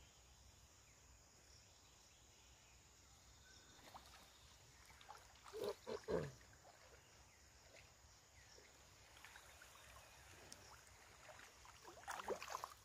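Faint riverside background hiss, broken about halfway by a few short, loud sounds falling in pitch, and near the end by water splashing and dripping as a wet gill net is lifted out of the shallows.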